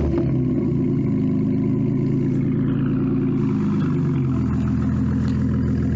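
BMW Z3's six-cylinder engine with a straight-piped, muffler-deleted exhaust, idling loudly just after starting. The idle drops to a lower, steady speed about four seconds in.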